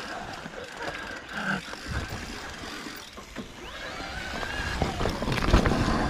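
Mountain bike riding over a dirt trail: tyre noise with scattered clicks and rattles, and low rumbling that grows louder toward the end.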